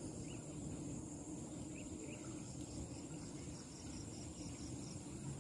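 Insects trilling steadily and high, joined in the second half by another insect chirping in quick regular pulses, about five a second, over a low steady rumble.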